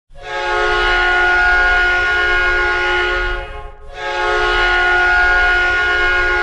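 Hockey goal horn sounding two long, steady blasts with a short break between them, the first lasting about three and a half seconds.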